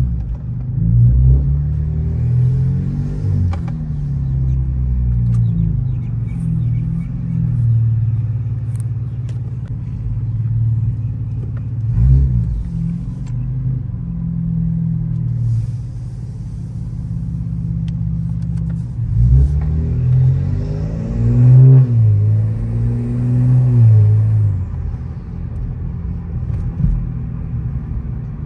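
Cadillac CT4-V Blackwing's twin-turbo V6 with catless downpipes, heard from inside the cabin while driving: a low, steady engine and exhaust note whose pitch rises and falls several times as the car accelerates and eases off.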